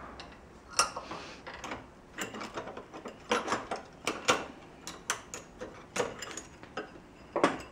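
Steel C-clamp being unscrewed and lifted off an angle-iron jig holding a steel tube: irregular metallic clicks, scrapes and small clinks.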